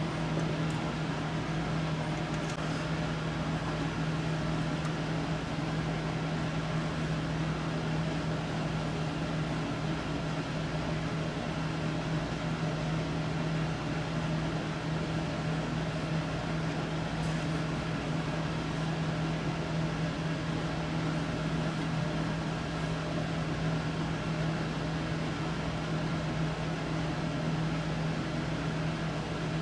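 Steady mechanical hum with one low droning tone, like a small fan motor running.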